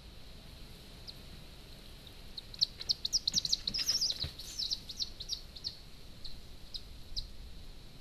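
Common buzzard giving a quick run of short, high-pitched squeaky calls, densest for about two seconds and then thinning out. Wing flaps and a soft thump come among the densest calls. This is a call the birds aim at each other when they meet, which the uploader likens to nest sounds.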